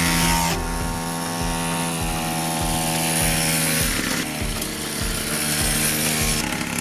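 Small 49cc two-stroke minibike engine running at a steady high-revving buzz as the bike is ridden; the note changes about four seconds in.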